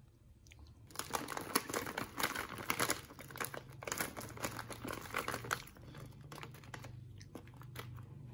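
Plastic cookie-packet wrapper crinkling as it is handled. The crinkling is dense from about a second in, then thins to scattered crackles after about five and a half seconds.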